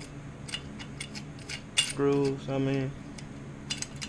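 Light metallic clicks and clinks, scattered and irregular, from bolt and mount hardware being worked by hand on a bicycle engine kit's front mount; the sharpest click falls just before the middle and two more come close together near the end.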